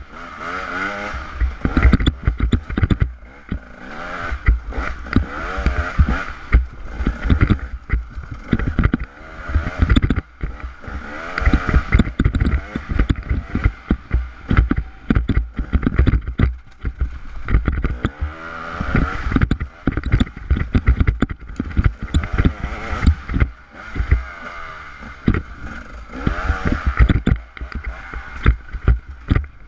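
Dirt bike engine revving up and falling back over and over as it is ridden hard along a rough trail, with wind and bumps buffeting the microphone.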